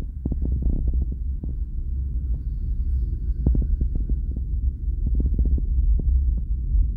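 Heavy rain drumming on a car's body, heard inside the cabin of the moving car as a steady deep rumble with many irregular knocks and patter.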